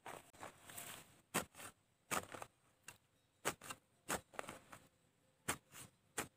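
Long-handled digging spade with a narrow iron blade stabbed again and again into grassy soil: about six sharp strikes at uneven intervals, with soil and roots crumbling between them.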